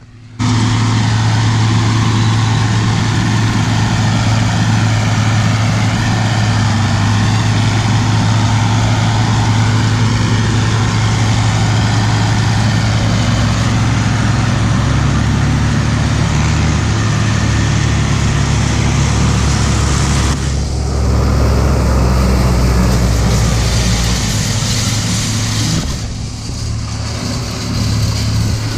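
A motor vehicle's engine running steadily with a low, even hum, its tone shifting a little about two-thirds of the way through.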